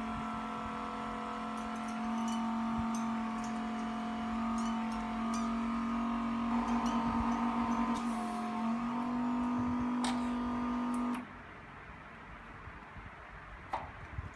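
Electric motor of an LCD refurbishing machine (glass separator or vacuum pump) running with a steady hum. The hum wavers briefly in the middle and stops suddenly about eleven seconds in, followed by a few faint clicks.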